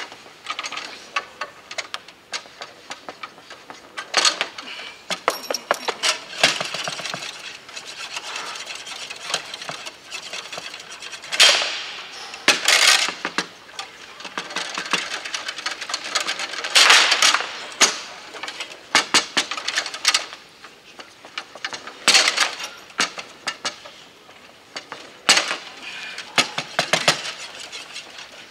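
Foosball table in play: rapid clacks and knocks of the ball against the players' figures and the table walls, and rods clattering as they are shot and spun. Every few seconds comes a louder flurry of quick hits.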